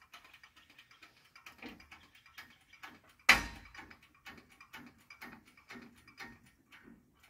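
Engine hoist (cherry picker) being worked by hand, giving a steady run of mechanical clicks about two a second, with one loud metal clunk a little past three seconds in.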